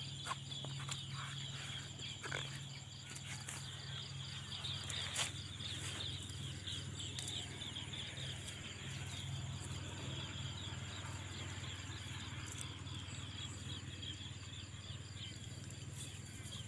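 Crickets and other insects chirring steadily in a dense chorus over a low steady hum, with a few faint sharp ticks, the clearest about five seconds in.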